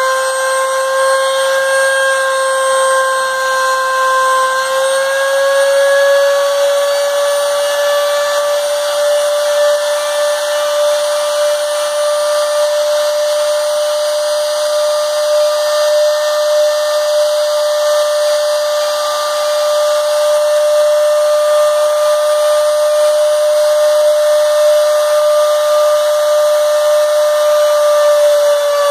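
Makita trim router on a CNC machine running with a steady high whine while its bit routes out letters in a wooden board, with a hiss of cutting over it. The whine rises slightly in pitch about five seconds in.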